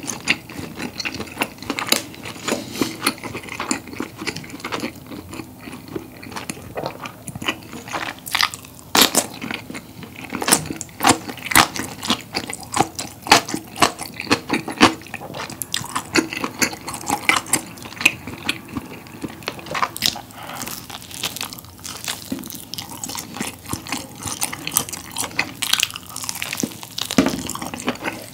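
Close-miked chewing of rolled-up combination pizza: irregular wet mouth clicks and soft crunches of crust, going on without a break.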